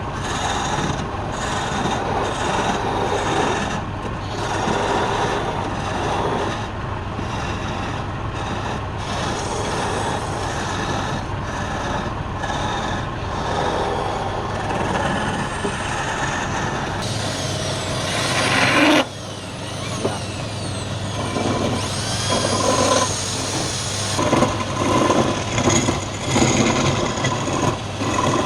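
Wood lathe running with a steady hum while a tool rasps against the spinning wood. About two-thirds of the way through, a louder scrape builds and stops abruptly. Shorter, broken strokes follow.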